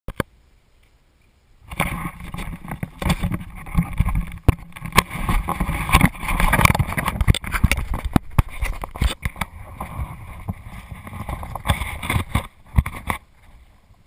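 Handling noise from an action camera being fitted and adjusted on the wearer's head: close rubbing and scraping against the housing, with many sharp clicks and knocks. It starts about two seconds in and stops shortly before the end.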